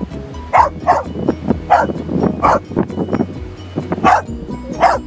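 A dog barking in short, sharp barks, about six times, at a stone it has dug up in the sand.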